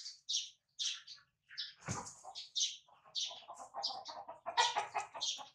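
Baby monkey giving repeated short, high-pitched squeaks and chirps, about two a second, fussing as it is handled. The calls grow denser and fuller about three seconds in.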